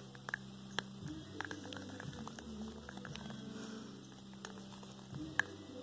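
Plastic spoon stirring blue paint into glue in a plastic cup: soft squishing with scattered small clicks of the spoon against the cup, one sharper click near the end, over a low steady hum.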